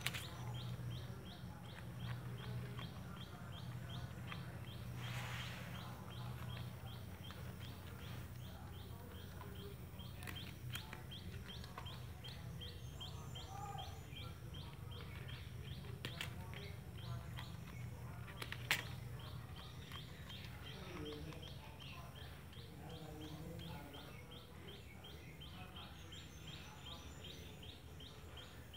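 A bird chirping rapidly and repeatedly, about four short chirps a second, over a steady low hum, with a few faint sharp clicks.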